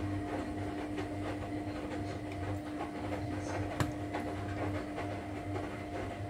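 A steady machine hum with a low throb that swells and fades about once a second, over faint soft rubbing and squishing of fingers working herbs into raw chicken breast; a single sharp click about four seconds in.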